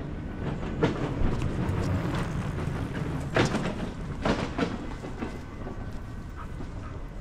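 A vehicle passing with a low rumble and a few sharp knocks. It swells in the first couple of seconds and fades towards the end.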